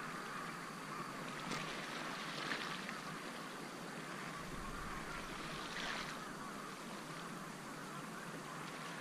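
Sea water lapping against a concrete harbour quay: a steady wash with a few brief, sharper splashes.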